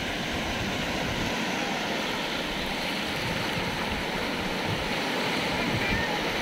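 Small sea waves breaking into foam around rocks in the shallows at the shoreline, a steady wash of surf.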